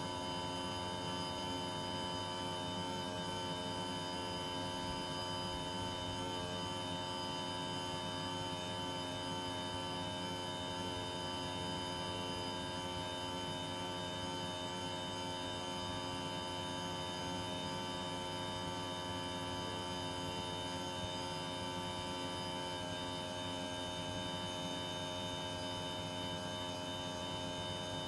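Panasonic split-system air conditioner running with a steady, noisy hum: many even whining tones over a low drone, unchanging throughout.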